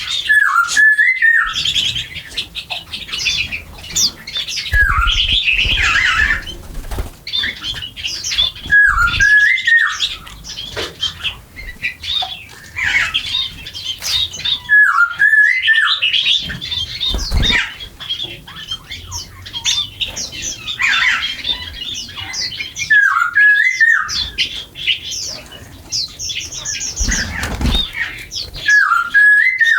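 A flock of small birds chirping and squawking non-stop at close range. A short call that dips and rises recurs every six to eight seconds, and now and then there is a flutter of wings.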